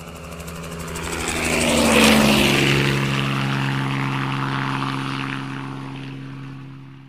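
Helicopter flying past: its engine and rotor hum swells to a peak about two seconds in, drops in pitch as it passes, then fades away.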